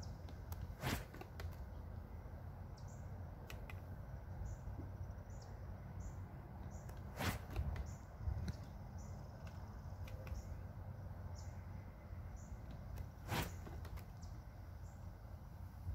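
A Power Chute golf swing trainer, a small parachute on a club shaft, swung three times about six seconds apart. Each swing is a short, sharp whoosh as the chute catches the air.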